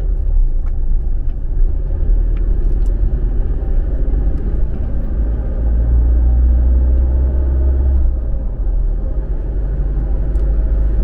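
Steady low rumble of a car's engine and tyres heard from inside the moving car's cabin, swelling for a couple of seconds in the middle.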